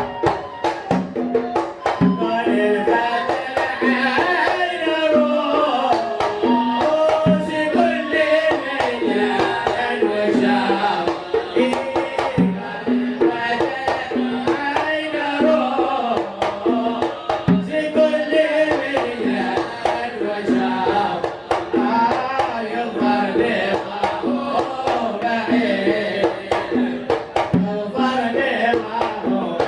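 Sung devotional poetry in the Kuwaiti sawt style, the melodic voice line carried over hand drums beating a steady, repeating rhythm.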